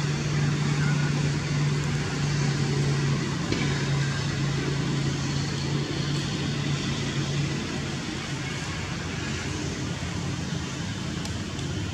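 Steady low hum over a hiss of outdoor background noise; the hum weakens about seven and a half seconds in.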